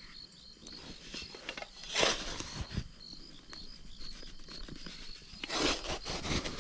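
A small hand shovel digging and scraping into dry sandy soil, with two louder crunching strokes, one about two seconds in and one near the end. Crickets chirp steadily behind it.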